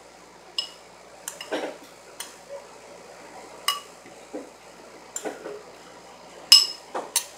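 A metal spoon scraping grated coconut out of a plastic bowl into a steel grinder jar, with irregular sharp clinks and knocks as the spoon taps the bowl and jar rim.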